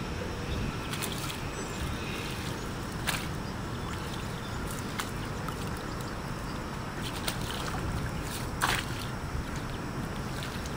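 Oar strokes of a small rowed boat: a short, sharp sound from the oars about every two seconds, over a steady low rumble.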